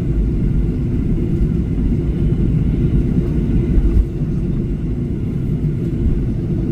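Steady low rumble of an airliner's engines and airframe heard inside the passenger cabin as the aircraft taxis after landing.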